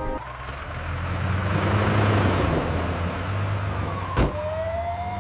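A low, steady engine hum under a rushing noise that swells and then eases, a single sharp click about four seconds in, and then a siren tone starting to rise near the end.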